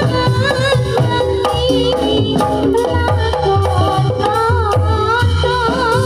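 Kubro Siswo folk music, Javanese: a woman singing with a wavering voice over the miked ensemble, with steady hand-drum beats and gongs.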